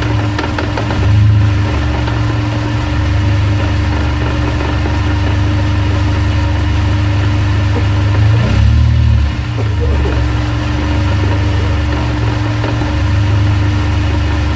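Honda S2000's four-cylinder engine idling with drivetrain noise from the transmission and propshaft, a rattle the owner is trying to pin down. The note changes briefly about two-thirds of the way through.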